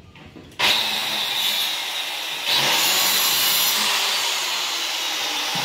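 Handheld electric cutter machine starting up about half a second in and cutting into the edge of a plywood door to notch the recess for a brass L-hinge. The noise gets louder about two and a half seconds in.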